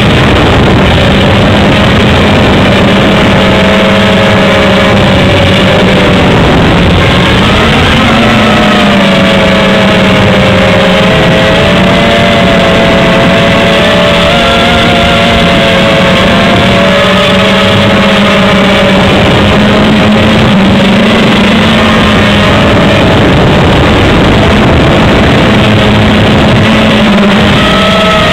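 HobbyKing X230 quadcopter's motors and propellers running, heard loud through the quad's onboard camera microphone: a steady hum whose pitch wavers with the throttle. The pitch dips about six seconds in and climbs back about two seconds later.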